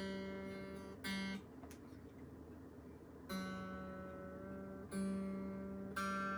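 Unplugged Telecaster-style kit guitar with one low string plucked over and over, about four times, each note ringing out for a second or two before the next pluck.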